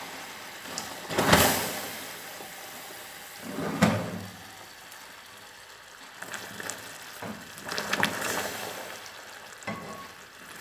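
Hot caramel sizzling and sputtering in an aluminium saucepan as boiling water is poured into it. Loud surges of hissing come about a second in, near four seconds and around eight seconds.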